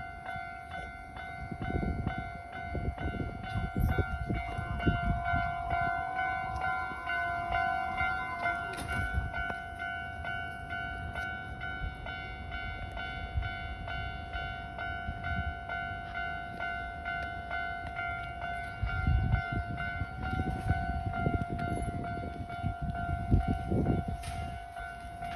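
A Japanese railway level crossing's warning bell rings on and on in a steady repeating chime. Hanshin Electric Railway trains rumble past over it twice: once in the first several seconds and again near the end.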